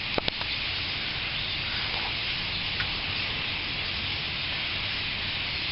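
A large flock of starlings chattering all at once in a dense, steady hiss of calls during a feeding frenzy, with their droppings pattering down like light rain.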